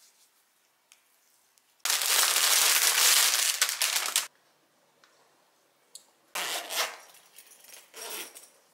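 Crinkling and rustling of packaging and fabric being handled during an unpacking, in one long loud stretch of about two seconds, then two shorter bursts near the end.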